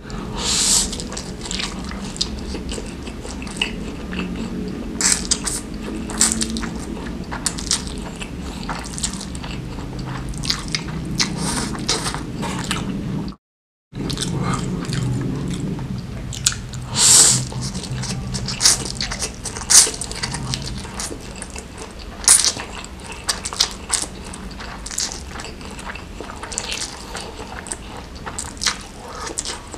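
Close-miked mukbang eating of stir-fried Mie Gacoan noodles: slurping noodles in with chopsticks and wet chewing, with a run of short, sharp mouth noises. The sound cuts out completely for a moment about halfway through.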